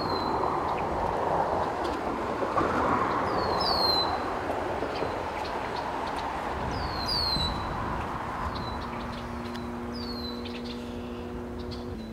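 Passing road traffic: a rush of tyre noise that swells and fades over the first eight seconds. A bird repeats a short, falling chirp about every three seconds, and a steady low hum of several pitches starts about nine seconds in.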